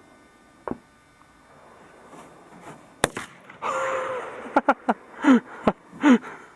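An AR-15 rifle shot cracks sharply about three seconds in at a propane canister, followed by about a second of rushing noise and several more short sharp cracks. Two short falling-pitch calls come near the end.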